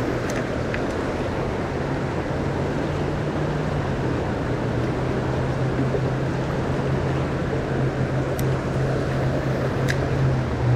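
Steady rush of flowing river current, loud and even, with a low steady drone underneath. Two faint sharp ticks near the end.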